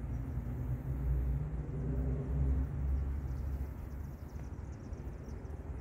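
Low, uneven rumble with nothing clear above it.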